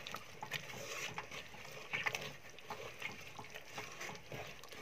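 Thick tomato-based lotus stem curry bubbling as a wooden spoon stirs it in a heavy metal pot, with wet squelching and soft, irregular pops.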